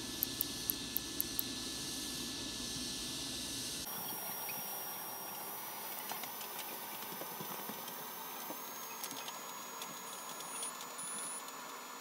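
Steady background hiss with small sharp clicks and faint ticks from handling a small micro switch and its wires. A quick run of clicks comes in the first second or so.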